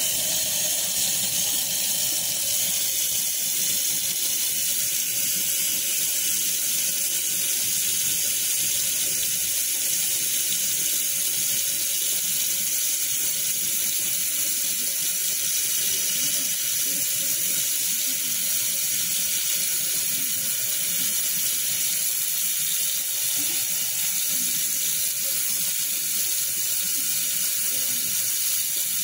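Tap water running steadily into a stainless steel sink, splashing onto a paintbrush held in the stream and into a shallow pool of water.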